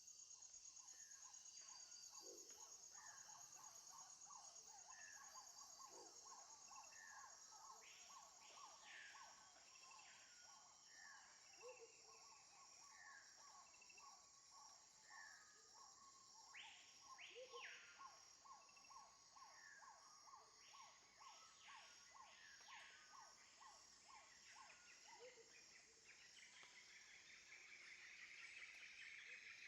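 Jungle ambience, faint: insects keep up a steady high chirring, under a fast pulsing trill that fades out near the end. Short low calls repeat every couple of seconds, and higher bird calls come in bunches through the middle.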